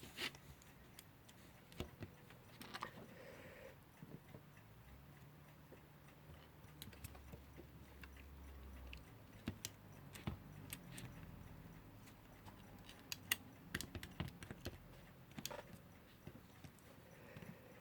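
Faint, irregular clicks and taps of small metal alarm-clock parts being handled and fitted during reassembly.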